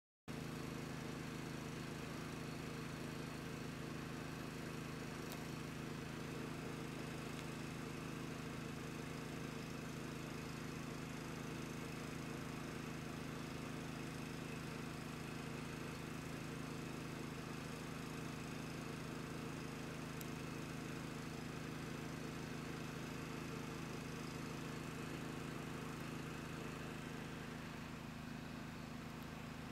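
A steady low mechanical hum that holds one pitch, easing slightly near the end.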